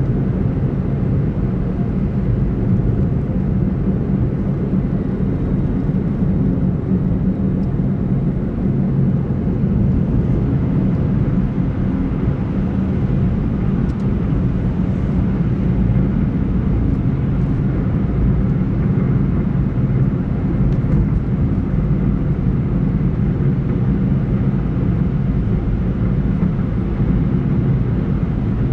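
Car cruising at a steady speed: an even, unbroken rumble of engine and tyre road noise, heard from on board the car.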